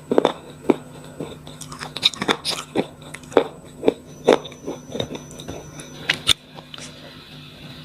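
Close-miked biting and chewing of slate pencils, with irregular sharp crunches, roughly one or two a second.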